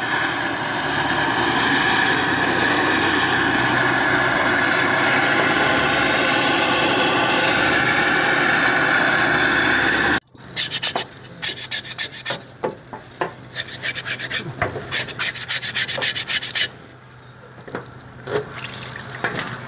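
Handheld butane gas torch burning steadily as its flame singes the fine hair off wild boar skin. About ten seconds in it gives way to a knife scraping the charred skin in quick, uneven strokes.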